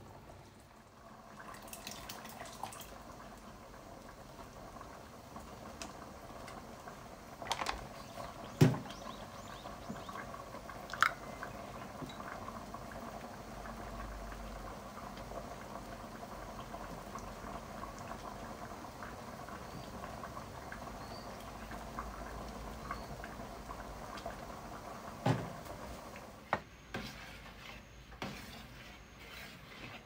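A large pot of liquid simmering on a gas stove while a ladle stirs it, with a few sharp knocks of the ladle against the pot.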